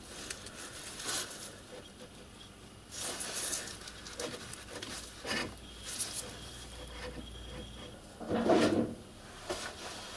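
Irregular handling sounds of a small locomotive cylinder being worked over a piston held in a lathe chuck, the chuck turned by hand: scuffs, rubbing and gloved-hand rustle, with the loudest scuff about eight and a half seconds in.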